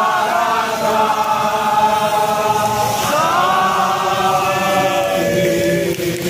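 Crowd of football supporters singing a chant in unison, with long held notes in two phrases of about three seconds each, each beginning with a rising swoop.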